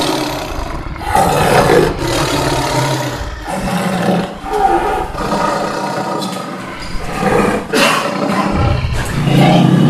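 A big cat, such as a tiger, roaring loudly over and over, one rough roar after another with short breaks.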